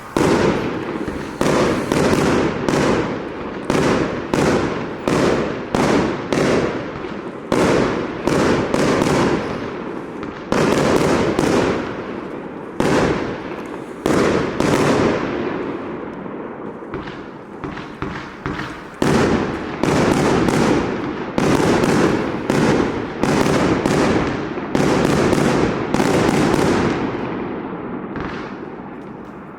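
Burning Sky 120-shot compound firework barrage firing: a fast run of shots, about one or two a second, each followed by dense crackling from the crackling dragon egg effects. There are a couple of brief lulls where the crackle dies down before the next shots.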